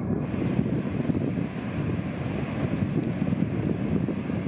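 Heavy hurricane-swell surf breaking on the beach, with wind buffeting the microphone.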